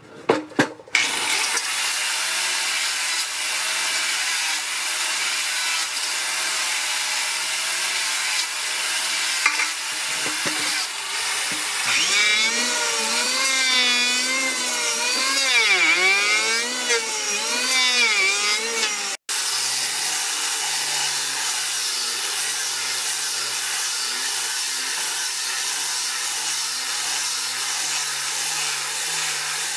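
A few knocks of a wooden board being handled, then a handheld electric planer runs as it shaves the board's edge, its whine wavering up and down while it cuts. After an abrupt break about two-thirds through, an angle grinder fitted with a sanding pad runs steadily, sanding the board's face.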